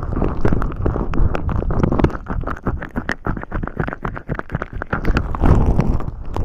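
Fingers rubbing cream and oil right against the microphone in a behind-the-ear massage: fast, sticky crackles and squelches over a low rubbing rumble, easing briefly about two-thirds through and building again near the end.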